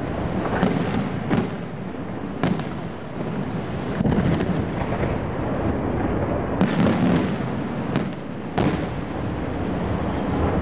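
Aerial fireworks display: a continuous dense barrage of bangs and crackling, with sharper, louder reports standing out several times.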